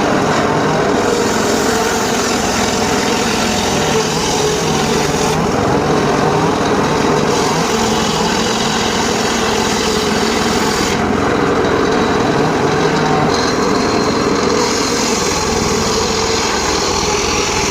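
Homemade circular sawmill running steadily and loud while sawing teak. Its high hiss brightens and fades every few seconds.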